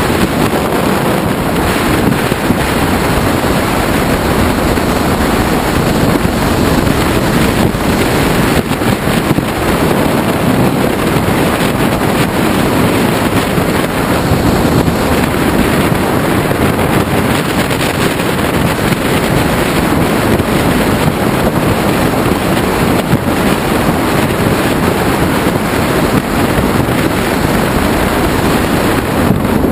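Ducati Multistrada ridden at road speed: steady wind rush on the onboard camera's microphone, with the motorcycle's engine running underneath.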